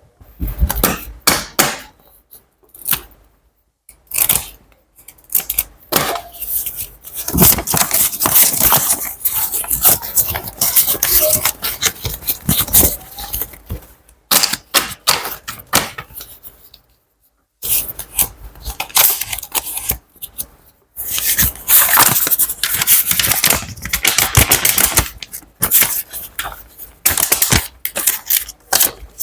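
Money handled close to the microphone: bursts of crisp rustling, crackling and clicking, stopping and starting with short quiet pauses.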